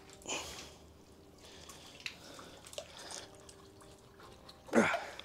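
Water dripping off a find just lifted out of the water on a magnet-fishing magnet, in scattered small drips, with a brief louder noise near the end.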